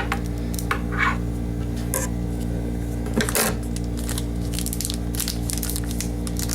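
Trading-card pack wrapper crinkling and tearing in short, scattered crackles as the pack is opened, over a steady low electrical hum.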